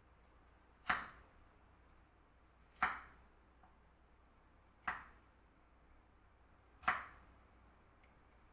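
Knife chopping down onto a cutting board: four single, sharp chops, evenly paced about two seconds apart.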